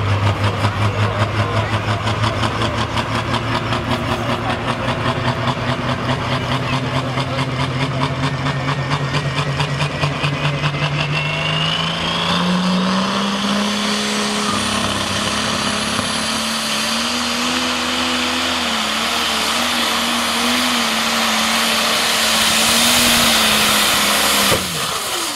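John Deere super stock pulling tractor's turbocharged diesel engine running at the starting line with a pulsing low idle, then revving up about ten seconds in and holding a high, steady pitch under boost, with a high whine rising over it. The engine note changes abruptly near the end as the tractor pulls down the track.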